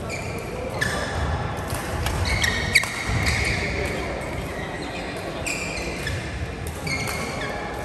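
Badminton players' court shoes squeaking on the floor in several short, high-pitched squeals. A single sharp racket hit on the shuttle comes near three seconds in.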